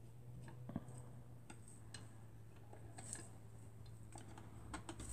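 Faint, scattered small clicks and taps of the sewing machine's metal shuttle and bobbin parts being handled and fitted by hand, over a low steady hum.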